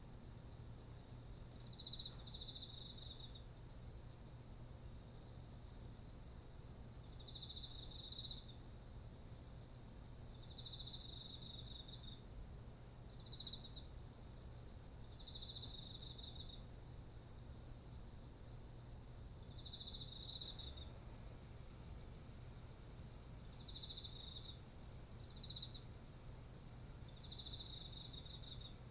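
Chorus of autumn singing insects: one steady, very high continuous trill, over it a pulsing trill in long phrases of several seconds broken by short pauses, and shorter chirping bursts from another insect every two to three seconds. A faint low hum runs underneath.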